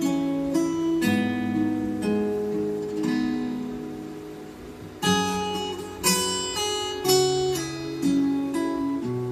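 Instrumental song intro of plucked guitar chords, a new chord struck about once a second. It fades slightly around four seconds in and comes back strongly at five.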